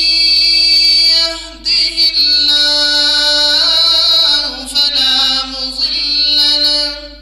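A qari's high male voice in melodic Arabic recitation, holding long, wavering notes. There are two phrases with a short breath about a second and a half in, and the pitch steps lower partway through the second.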